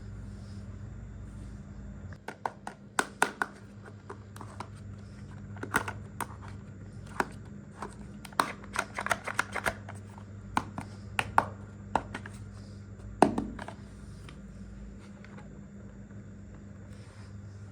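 Small toy kitchen pieces handled by hand: irregular light clicks and taps, with one louder knock late on, over a steady low hum.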